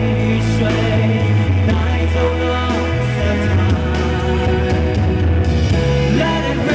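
Live band music played loud through a PA, with bass, drums and keyboard, and a singer's amplified vocal over it.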